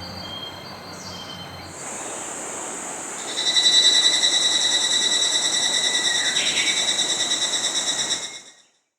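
Insects trilling in a steady, high-pitched chorus with a fast pulsing edge. It grows louder about three seconds in and cuts off suddenly near the end.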